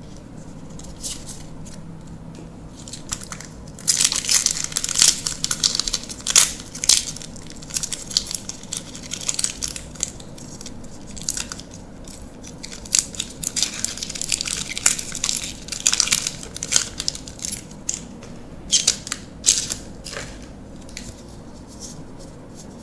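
A Magic: The Gathering draft booster pack's plastic foil wrapper being torn open and crinkled in the hands: a dense run of crackling starting about four seconds in and thinning out near the end. Before and after it, the quieter sliding of playing cards being handled.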